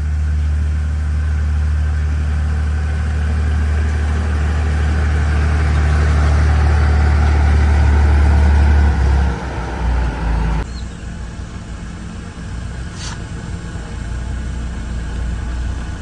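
Heavy road-construction machine's diesel engine running with a steady low drone that slowly grows louder, then drops away about nine seconds in. After a sudden change about ten and a half seconds in, an engine runs more quietly.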